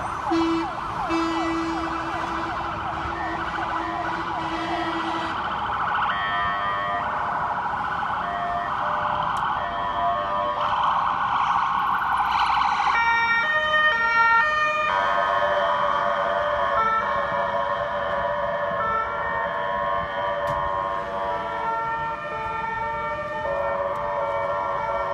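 Sirens of fire service emergency vehicles on an alarm run, several sirens overlapping. For about the first five seconds a fast warbling siren sounds with a low steady horn tone under it. After that the sirens switch between alternating two-tone patterns and faster warbles.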